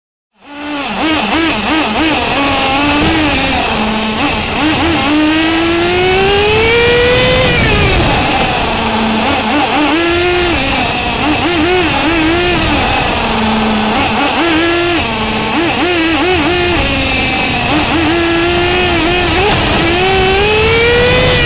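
Engine of a Bycmo Evo 1/7 RC car, heard from an onboard camera as the car laps a track. It cuts in suddenly just after the start and runs without a break; its pitch climbs in a long rise on the straights, twice, and drops away into the corners, with short quick throttle blips between.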